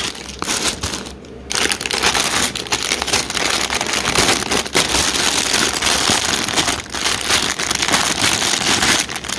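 Sealed plastic Lego parts bags crinkling loudly as they are handled and laid out, with a brief lull about a second in.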